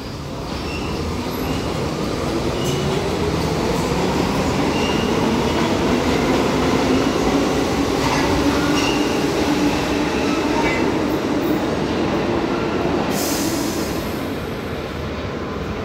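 R62A subway train on the 1 line pulling out of the station, its motors whining slowly up in pitch as it gathers speed. The rumble of the cars builds to a peak about halfway through, then eases as the last cars pass, with a short burst of hiss near the end.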